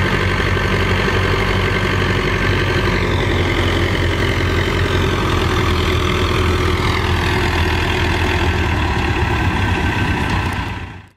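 Massey Ferguson tractor engine working steadily as the tractor creeps forward on a pull. Its pitch sags a little twice, as if lugging under load, and the sound fades out near the end.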